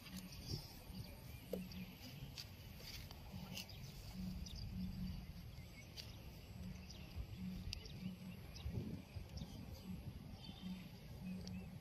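Faint outdoor background noise: a low rumble with short faint tones and a few small clicks scattered through it.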